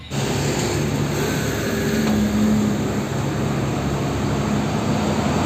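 Motor vehicle engine sound effect, running steadily with a low hum. It cuts in abruptly.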